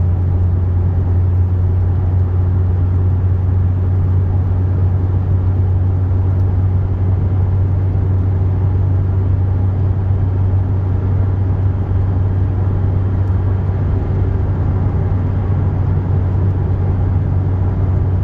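Steady low in-cabin drone of a 2006 Honda Civic Si at highway cruise, about 60–65 mph: its K20Z3 four-cylinder engine and exhaust humming under tyre and road noise, with no revving or shifting.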